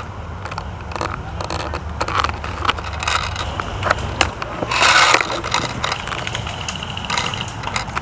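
Handling noise from a camera taped to an airsoft gun: scattered sharp clicks and crunching, with a louder rustling rush about five seconds in.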